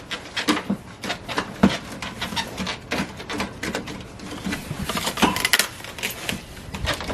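Irregular plastic clicks, knocks and rattles as the accordion side panels of a window air conditioner are handled and fed into their slide tracks.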